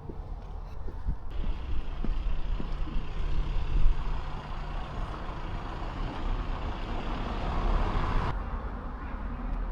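Heavy road vehicle running close by with a steady low engine hum, and a loud hiss that starts suddenly about a second in and cuts off sharply about eight seconds in.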